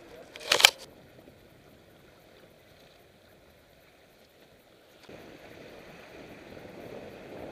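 A sharp knock about half a second in, then a faint hiss. From about five seconds the rush of water along a sailboat's hull, with wind, grows slightly louder.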